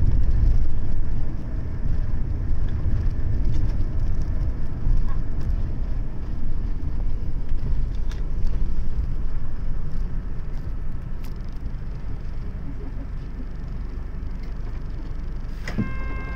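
Cabin noise inside a highway coach: low engine and road rumble, quieting as the bus slows to a stop. Just before the end a click is followed by a steady electronic chime.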